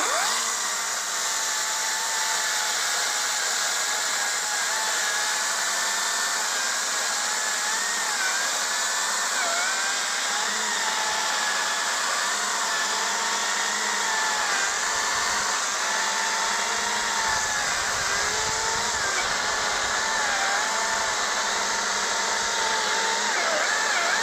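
Hychika CS40B 36-volt brushless cordless chainsaw running continuously in its normal power mode, cutting wood. Its steady motor whine wavers and dips slightly as the chain takes load.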